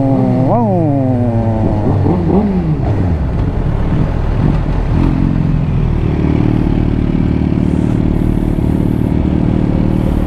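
Motorcycle engine given two quick throttle blips, one about half a second in and one about two seconds in, with the revs falling away after each. It then settles to a steady low running note for the second half.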